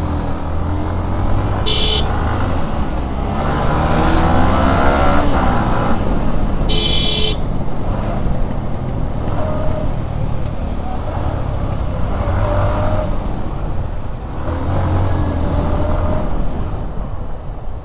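Motorcycle riding in traffic, with a steady low rumble of engine and wind and the engine note climbing as it accelerates a few seconds in. A vehicle horn honks briefly twice, about two seconds in and again near seven seconds.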